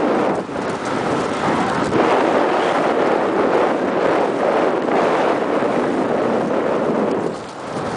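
Wind buffeting the microphone of a camera carried on a moving horse: a loud, steady rushing that dips briefly near the end.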